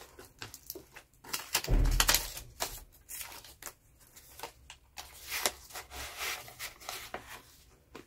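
Clear plastic binder pockets crinkling and euro banknotes rustling as they are slid in and handled, in short irregular rustles. It gets louder about two seconds in, with a low thump.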